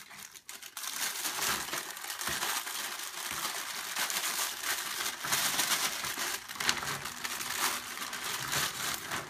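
Crinkling plastic from a saltine cracker sleeve and a plastic zipper bag as handfuls of saltine crackers are emptied into the bag, with a continuous, uneven rustle.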